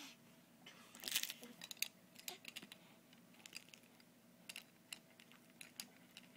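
Faint, irregular clicks and taps of a plastic teething toy being handled and mouthed by a baby, over a faint steady hum.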